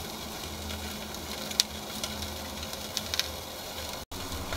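Steady hiss of a tri-tip searing on the grate inside a closed ceramic kamado grill, with a low hum underneath. A few sharp crackles come about one and a half and three seconds in.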